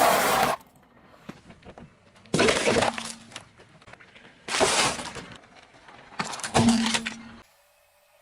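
Brittle objects crunching and breaking under a car tyre in four separate bursts: one ending about half a second in, then three more about two seconds apart, with light crackling between them.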